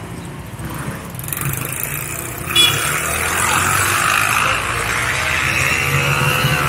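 Street traffic: a motor vehicle running close by, its noise building from about a second in and staying loud, with a brief sharp sound about halfway through.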